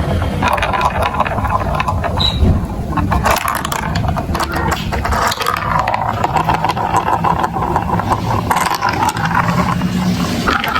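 Marbles rolling and clattering continuously through plastic marble-run blocks, with many small clicks and rattles.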